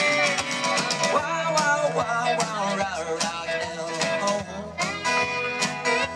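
Live country band playing an up-tempo number with guitar to the fore and a steady beat.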